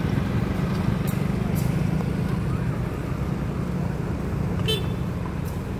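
Diesel-electric locomotive's engine running with a steady low drone as it pulls the train slowly out of the station, with a few short clanks.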